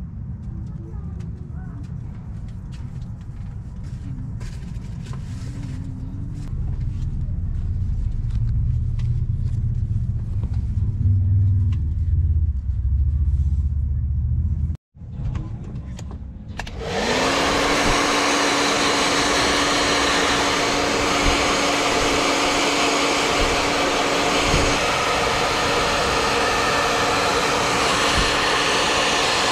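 A hot-air blower starts up about halfway through. Its motor rises quickly to a steady whine over a loud rush of air, heating the contact cement on the shoe's sole and uppers to reactivate it before they are pressed together. Before it there is only a low rumble with light clicks.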